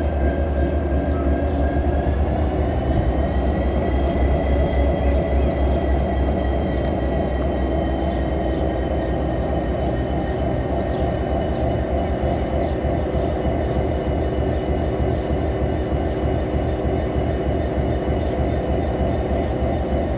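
Diesel engine of a Romanian class 65 'Teodora' diesel-electric locomotive, rebuilt with a General Motors engine, running steadily at idle after being started. A deep, evenly pulsing hum, with a high whine that rises a little about two seconds in and then holds steady.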